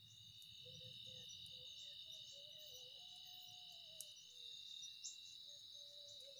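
Night-time insect chorus: steady, high-pitched trilling of crickets, faint, with a couple of soft clicks about four and five seconds in.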